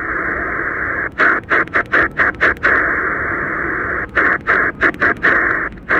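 Choyong LC90 shortwave receiver in upper sideband giving band hiss through its narrow filter, with no station coming through. Two runs of quick clicks and brief dropouts break up the hiss as the tuning knob is stepped up the band.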